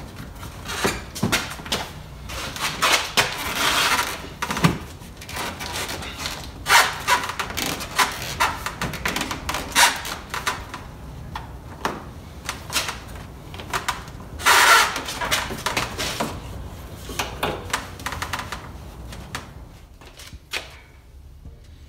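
Plastic front grille of a 2017 Dodge Journey being worked back into place by hand: repeated clicks and knocks as its tabs are pushed into their slots, with a few longer scraping bursts of plastic rubbing on plastic.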